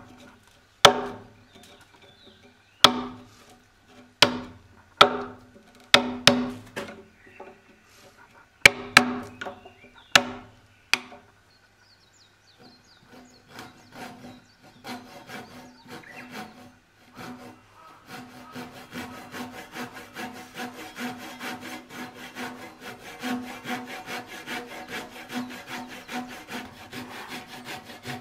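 A hammer striking a chisel cutting into a Japanese pine beam, about ten sharp blows over the first eleven seconds. Then a Japanese handsaw starts a cut in the pine and settles into fast, even sawing strokes from about 18 seconds in.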